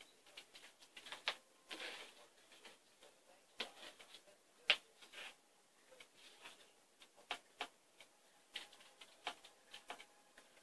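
Faint, irregular clicks and light rustling, like small things being handled or shifted, with one louder click about halfway through.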